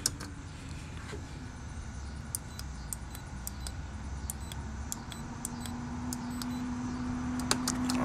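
Fingertip presses on a TurboLock electronic door lock's keypad buttons: a series of light, sharp clicks, irregular at two or three a second. The lock does not take the code, because the keypad has to switch itself off before a new entry. A steady low hum comes in about halfway through and grows louder.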